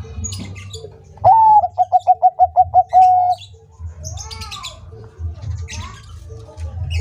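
Zebra dove (Bangkok-strain perkutut) singing one phrase about a second in: a clear opening note, a quick run of about eight pulsed notes, then a held closing note. A softer arched coo follows near the middle, with faint chirps from other small birds behind.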